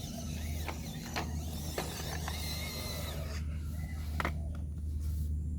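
MN D90 RC crawler driving: its small electric motor and gearbox run with a steady low hum, broken by a few sharp clicks and knocks.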